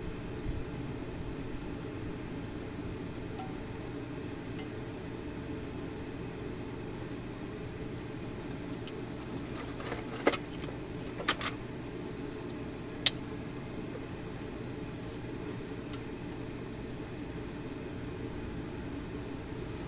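Steady low hum of a forge running while the punch heats for hardening. A few sharp metal clinks come a little past halfway, the loudest a single clink a couple of seconds after the others.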